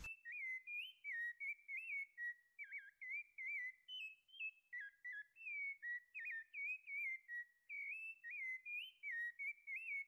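A whistled tune: a lively melody of short notes, about two to three a second, with quick slides up and down between them and nothing else audible behind it.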